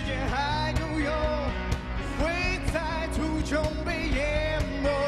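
Live pop-rock song: a male lead vocal singing in Chinese over electric guitars and a band with a steady beat.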